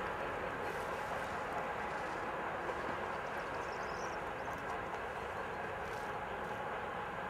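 Diesel-hauled freight train receding into the distance: a steady, even noise of the locomotive and wagons, easing only slightly.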